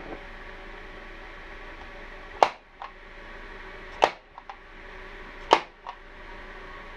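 Staple gun firing three times, about a second and a half apart, fastening carpet to a wooden top; each sharp snap is followed by a lighter click.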